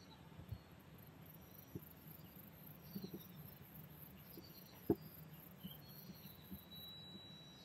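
Faint rural outdoor ambience with a few short distant bird chirps and a high, pulsing trill that stops near the end. Several soft low thumps break in, the loudest about five seconds in.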